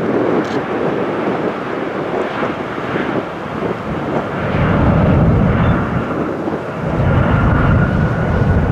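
Jet engines of a Boeing 737-800 (CFM56-7B turbofans) at takeoff power during the takeoff roll: a steady rumble, swelling a little, with a thin steady whine coming in about seven seconds in.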